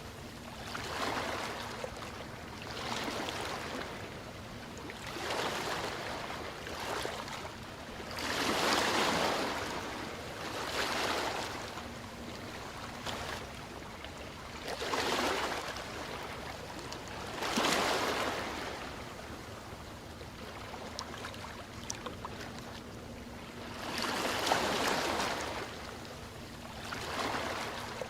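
Ocean waves washing ashore, surf rising and falling in repeated swells every few seconds over a steady wash.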